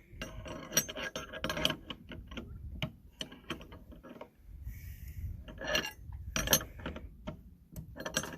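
Metal hardware clinking and clicking as the hoop house frame is worked on: a quick run of sharp metallic clinks with a slight ring in the first couple of seconds, then scattered knocks and clicks.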